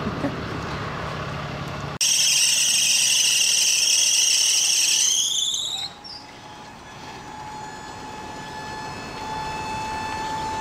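Car squealing loudly as it is winched onto a tow truck: a high-pitched squeal starts suddenly about two seconds in, lasts about four seconds and cuts off, followed by a fainter steady whine that grows toward the end. A low engine hum runs underneath at the start.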